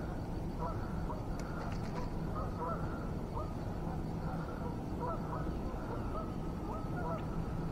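Waterfowl honking repeatedly, many short faint calls one after another, over a low steady rumble.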